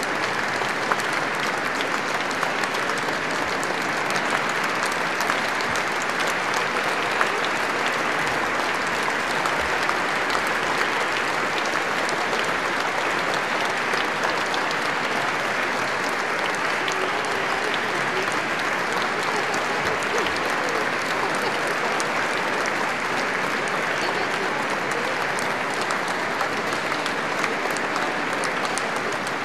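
Audience applauding steadily in a large reverberant church, a dense, even wash of many hands clapping.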